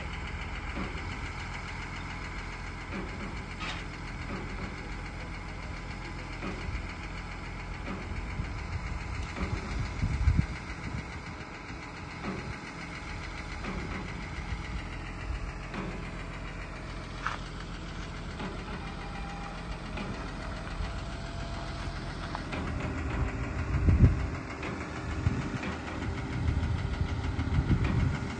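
A crane's diesel engine running steadily while the crane handles a suspended load, with scattered low knocks and a louder stretch near the end.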